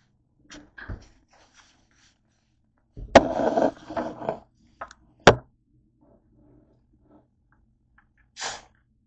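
Handling noises: a plastic soda bottle is set down on a wooden desktop with a loud knock and a second or so of scraping. A second sharp knock follows about two seconds later, and a brief hiss comes near the end.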